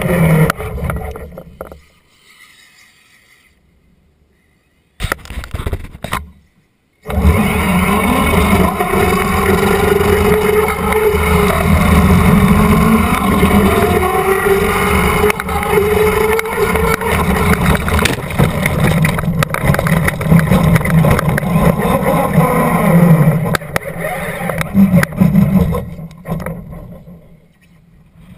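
Traxxas Slash RC car running on asphalt, heard from a camera mounted on the car: its motor and gears whine, rising and falling with the throttle, over a rough low rumble. The sound drops away about two seconds in and stays nearly quiet for a few seconds. It runs hard again from about seven seconds and fades out near the end.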